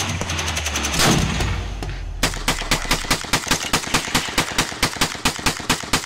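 Rapid gunfire: a fast, even string of shots, about five a second, starting about two seconds in, over a denser stretch of shooting with a deep low hum before it.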